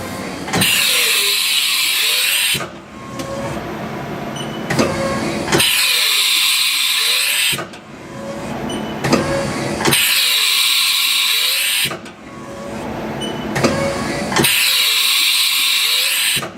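Haas Mini Mill's 10-station umbrella tool changer running through repeated tool changes, four cycles in a row. Each cycle has about two seconds of loud hissing air from the spindle air blast as the tool is released and clamped, then a stretch of whirring motor movement that rises and falls in pitch.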